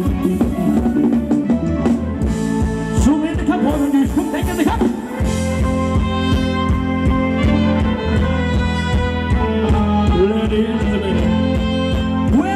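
Live band playing Thai ramwong dance music: a singer's melody over a steady drum beat and bass line, with the bass filling out about five seconds in.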